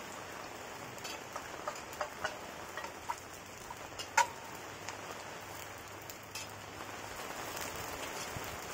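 Potato chips frying in hot oil in a camp oven over a campfire: a steady sizzle with scattered small pops and clicks, the sharpest about four seconds in.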